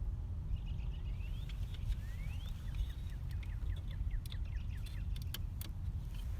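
Scattered small clicks of plastic and metal parts being handled while a new fusible link unit is fitted into a car's fuse box, over a steady low rumble. Near the middle a bird sings, a few rising whistles then a quick run of falling notes.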